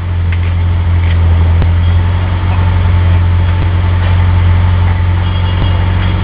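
Vehicle engine idling steadily close by, a deep even drone that doesn't change in pitch.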